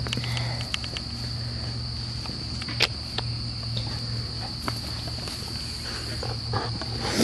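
Steady high-pitched drone of insects, with a low hum underneath and a few scattered clicks, the sharpest about three seconds in.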